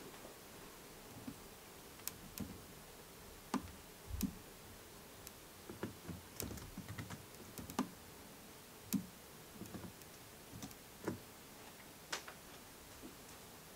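Irregular light clicks and soft knocks, unevenly spaced, from a person handling things close to the microphone.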